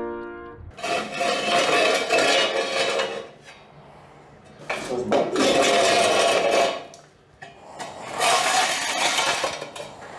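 Long-handled metal scraper dragged over a concrete wall, scraping off a dried termite mud tube: three long scrapes of about two seconds each.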